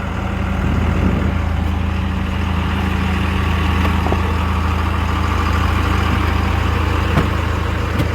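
A large vehicle's engine idling steadily, a low even hum.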